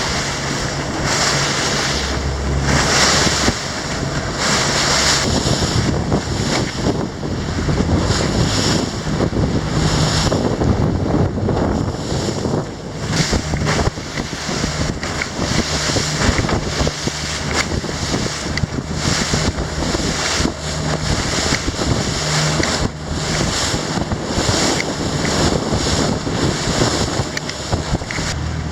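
Robalo 242 motorboat under way: a steady low outboard engine drone under the rush of water along the hull, with wind buffeting the microphone in irregular gusts.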